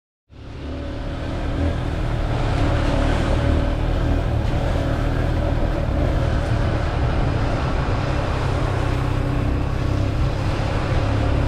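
Dirt bike engine running steadily, fading in over the first couple of seconds and then holding an even pitch.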